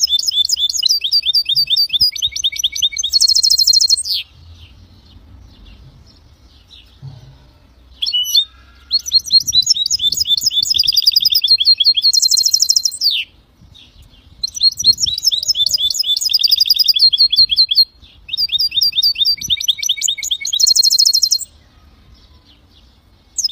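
Goldfinch × canary hybrid (a goldfinch mule) singing: four long phrases of fast trills and repeated notes, some closing in a quick buzzy rattle, separated by pauses of one to four seconds.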